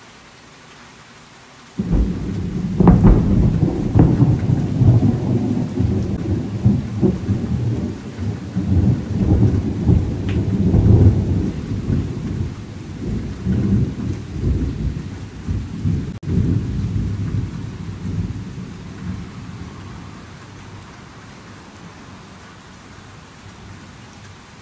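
A sudden, loud clap of thunder about two seconds in, with a couple of sharp cracks, then rolling thunder rumbling for over fifteen seconds and fading away. Steady rain falls throughout.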